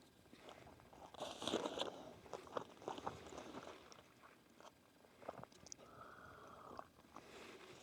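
A person biting into and chewing a sandwich: faint, irregular crunching bites and chewing, loudest about a second and a half in.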